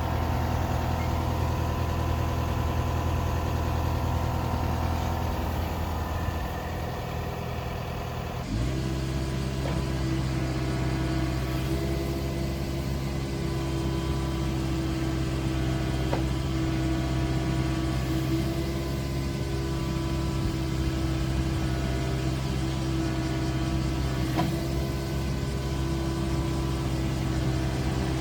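Komatsu PC45MR-5 mini excavator's diesel engine running steadily. About eight seconds in the sound changes abruptly to a steadier, higher-pitched drone, with a few faint clicks after.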